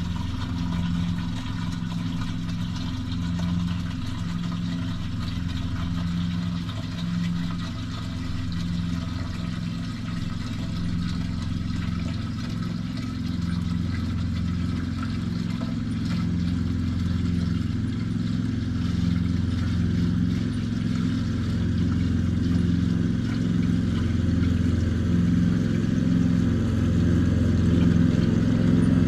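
Lawn tractor's Briggs & Stratton engine running steadily at idle with an even pulsing beat, growing a little louder toward the end.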